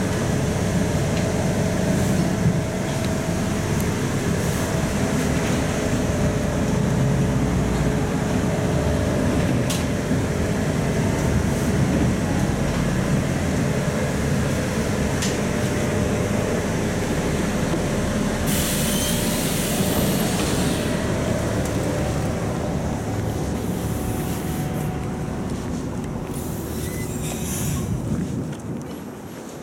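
Volzhanin-5270 city bus heard from inside while driving: steady engine and road noise with a faint steady whine. About eighteen seconds in comes a hiss of air lasting a couple of seconds, with shorter hisses near the end as the running noise eases off.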